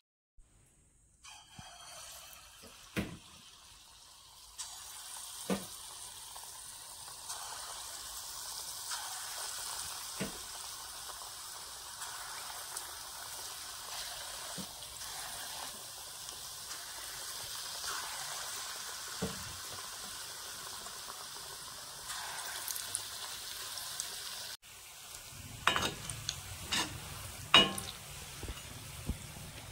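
Sugar-palm batter fritters deep-frying in hot oil in a wok: a steady sizzle of bubbling oil that starts about a second in, with scattered sharp pops and several louder ones near the end.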